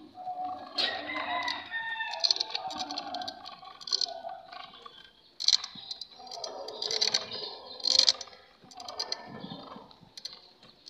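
Roosters crowing several times, with irregular clicking and rattling throughout.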